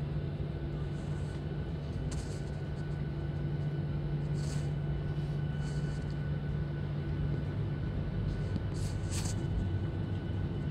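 Steady engine hum and rumble inside a jet airliner's cabin while the plane is on the ground before take-off, with the engines at low power. A few faint short ticks sound over it.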